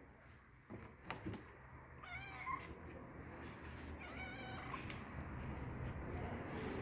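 Stray cat meowing twice, two calls of under a second each with a wavering pitch, about two seconds apart. A couple of short sharp snaps come about a second in, before the first meow.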